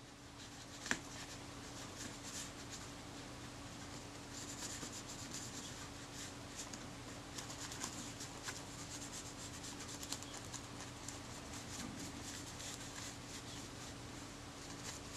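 Wooden toothpick spreading adhesive over the back of a leather camera covering: faint, light scratching and rubbing with many small ticks, over a low steady hum.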